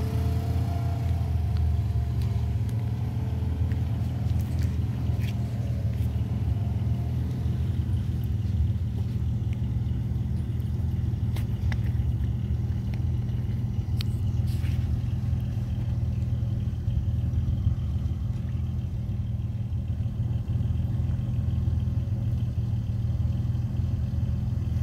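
Off-road vehicle engine idling steadily with a low, even hum, and a few faint light ticks.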